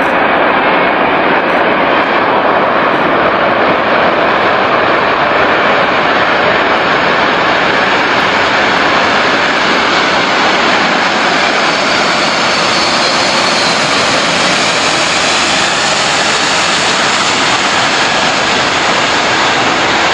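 Antonov An-225 Mriya's six turbofan engines running at power as the aircraft rolls along the runway: a loud, steady jet roar.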